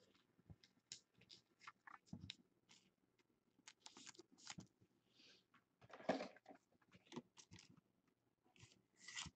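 Faint scattered crinkles and clicks of a trading card being handled and slipped into a clear plastic sleeve or holder, with a louder scrape about six seconds in.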